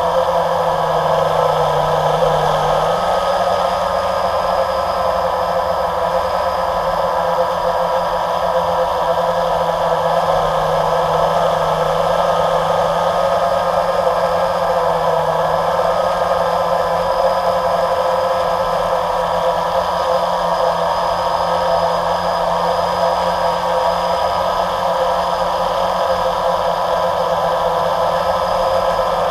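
Electric motors and propellers of a camera drone whirring steadily as it hovers, a constant high hum with a lower tone that dips in pitch briefly near the start.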